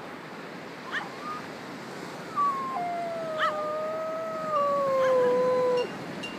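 A dog howling: one long howl begins about two seconds in, drops in pitch and then slides slowly lower before breaking off near the end. A few short rising cries come before and during it, over a steady hiss like surf.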